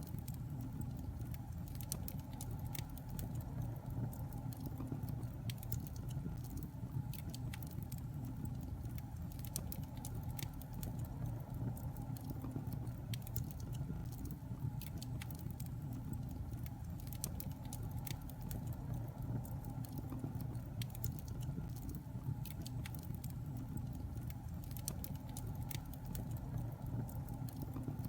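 Wood fire burning in a fireplace: a steady low rumble of flames with frequent, irregularly spaced crackles and small pops.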